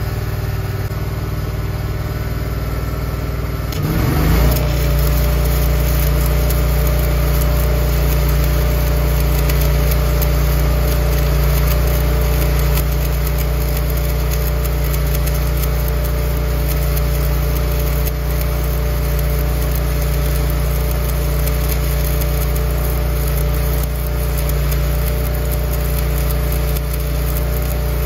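Engine-driven welder running at idle, then speeding up under load about four seconds in as the stick-welding arc is struck, after which it runs steadily under the crackle of the arc while a root pass is laid on a bushing.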